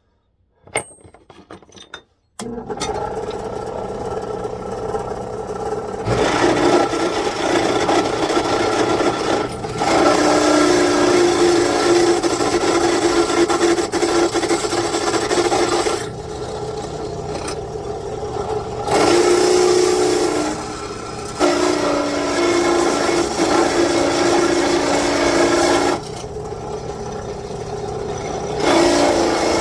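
A handheld power tool starts about two seconds in and runs on, working metal. Its loudness and steady tone rise and fall in stretches as it is pressed into the work and eased off.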